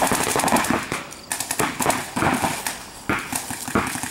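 Paintball markers firing in irregular volleys of sharp pops, with balls striking the inflatable bunkers.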